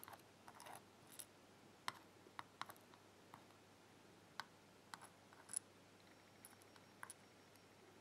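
Faint, irregular small clicks and taps of metal tweezers picking up and setting down tiny lock pins in the grooves of a metal parts tray.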